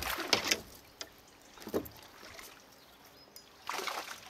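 Water sloshing and swishing against a plastic fishing kayak's hull in a few short bursts, the longest at the start and near the end.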